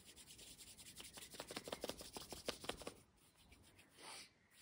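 Palms rubbed briskly together in a quick run of faint, dry swishing strokes, warming the hands to charge the Laogong point in the palm for a qigong exercise. The rubbing stops about three seconds in, and a brief soft swish follows near the end.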